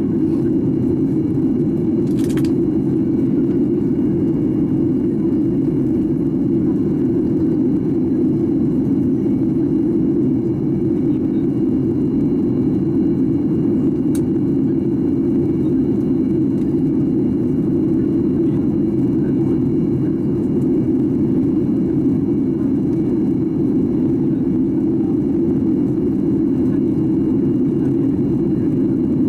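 Steady, even in-cabin roar of a Boeing 737-800 airliner in flight, its engine and airflow noise heard from a window seat over the wing.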